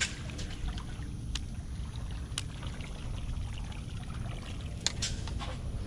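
Light water sloshing and trickling over a low rumble, with a few sharp clicks, as a big lure is reeled back across the water on a baitcasting rod and reel.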